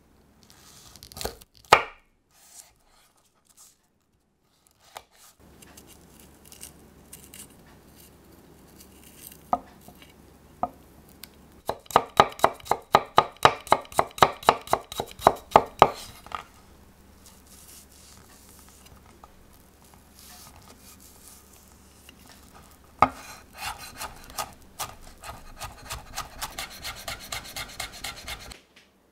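Chef's knife chopping garlic cloves on a wooden cutting board. First come a few separate cuts, then a loud run of fast, rhythmic chops near the middle. Near the end come quicker, lighter chops as the garlic is minced fine.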